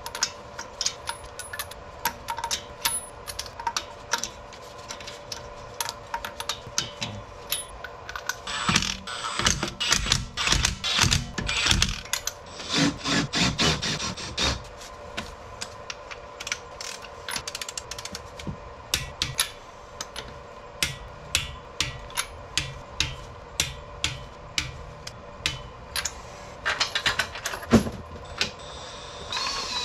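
Hand tools clicking on steel as lug nuts are wrenched onto a wheel and a floor jack is worked: a long run of metal clicks, about two a second, with a denser, louder clattering stretch about nine to fourteen seconds in. A faint steady hum runs underneath.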